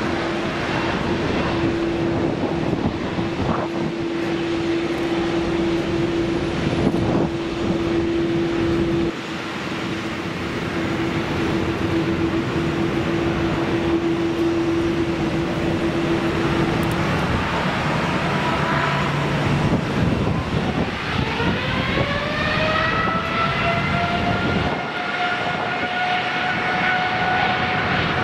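Boeing 787-9's GEnx turbofan engines at idle thrust as the airliner taxis, a steady hum. About twenty seconds in they spool up for takeoff, a rising whine that climbs and then levels off into a steady high tone as takeoff thrust is set.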